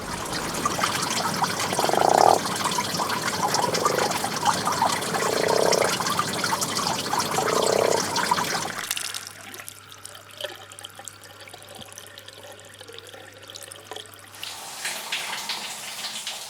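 A sequence of water recordings: loud, dense running or splashing water with four short, low gurgling tones, cutting about halfway to a quieter trickle over a steady low hum, then changing again near the end to sharper splashes and drips.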